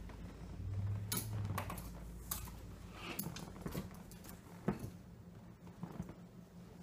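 Clothes being handled: fabric rustling with a string of light clicks and knocks from clothes hangers, the sharpest about two-thirds of the way in.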